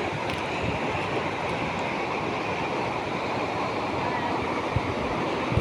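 Steady rushing of river water, with a few faint low thumps.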